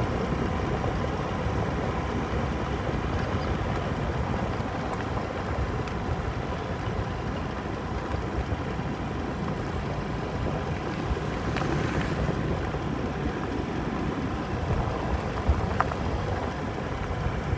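A small engine running steadily, with wind buffeting the microphone.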